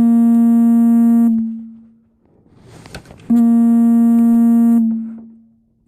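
A loud, steady electronic buzzer tone, like an alarm. It sounds for about a second and a half, fades away, and then sounds again about three seconds in.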